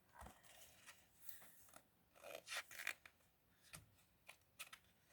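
Faint rustling and crinkling of paper as picture-book pages are handled and turned, in a series of short scrapes, the loudest about two and a half to three seconds in.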